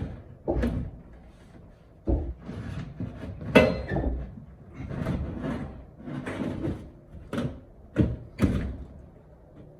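Sheet-metal clunks, knocks and scraping as a Carrier furnace's blower assembly is handled and slid back into its cabinet, with a dozen or so bumps of uneven strength, the loudest about three and a half seconds in, and quieter toward the end.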